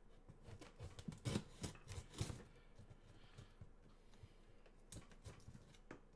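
A dull knife scraping and cutting through thick layers of packing tape on a cardboard box: a quick run of short scraping strokes over the first couple of seconds, then a few scattered faint scrapes and taps.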